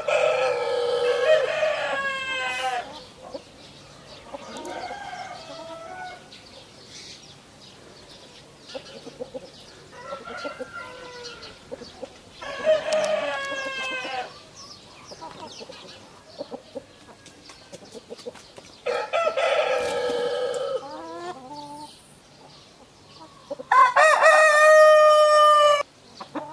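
Four long rooster crows, one at the start and the others about 13, 19 and 24 seconds in, with quieter chicken clucking and short calls between them.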